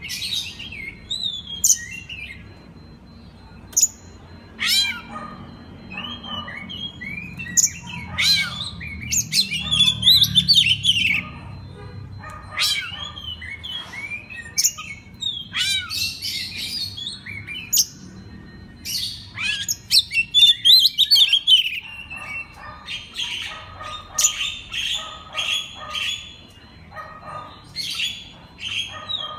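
Oriental magpie-robin (kacer) singing without pause: a varied song of clear whistles, rising and falling sweeps and sharp chirps, laced with phrases copied from other birds. Near the end it breaks into runs of quick repeated notes.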